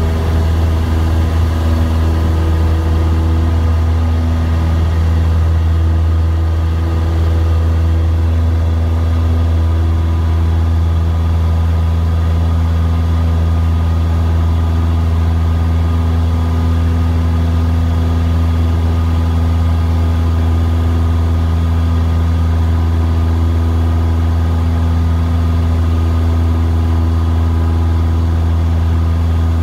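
Cessna 172's piston engine and propeller running at steady power, heard from inside the cabin as the plane rolls down the runway and climbs out. A loud, even drone with no change in pitch.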